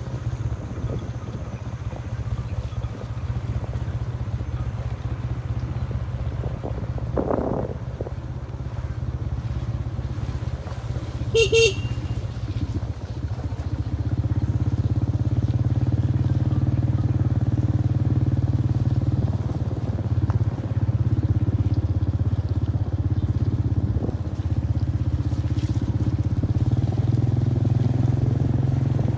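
Motorbike engine running steadily while riding, getting louder from about a third of the way in. About eleven seconds in there is one short horn beep, the loudest sound here.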